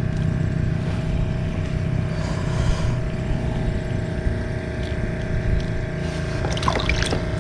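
An engine running steadily at a constant pitch, with a low rumble underneath. A few short, sharp, higher sounds come near the end.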